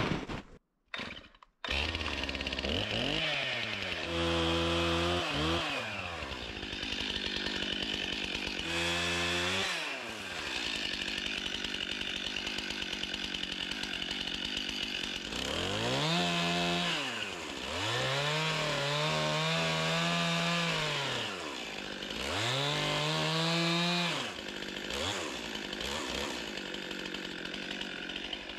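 Two-stroke chainsaw idling and revving up to cut small trees, its pitch climbing and dropping back about five times. It comes in after a short gap about a second and a half in.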